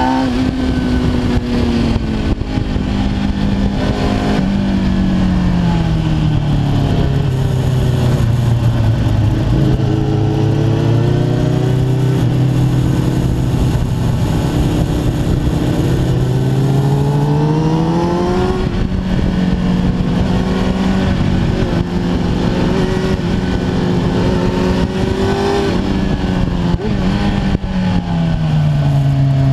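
Kawasaki ZX-10R's inline-four engine heard on board while riding, with wind rushing over the microphone. The engine note falls steadily as the bike slows through the first ten seconds, climbs and then drops sharply at a gear change about two-thirds of the way in, and falls again near the end.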